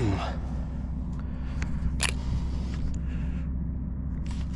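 A steady low mechanical hum, with a few faint sharp clicks and taps, the clearest about two seconds in.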